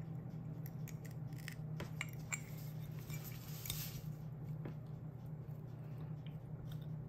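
Faint, scattered light clicks and taps as fused glass pieces and their bent high-fire wire are handled and adjusted, over a steady low hum.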